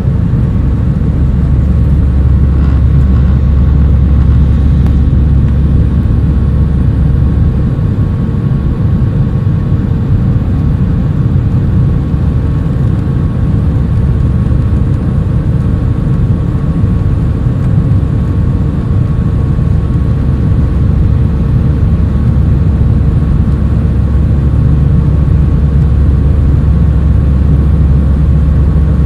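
Jet airliner's engines and airflow heard from inside the passenger cabin: a loud, steady roar with steady tones running through it. The deepest part of the rumble eases about a quarter of the way in and comes back near the end.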